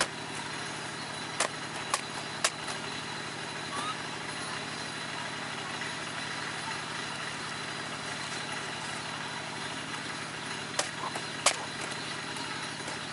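A steady low hum under an even hiss, with a few sharp clicks: three in the first few seconds and two close together near the end.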